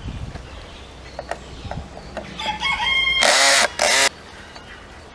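A rooster crowing loudly about two and a half seconds in, a harsh call in two parts lasting under two seconds. Light clicks and taps of hand work on a wooden gate latch come before it.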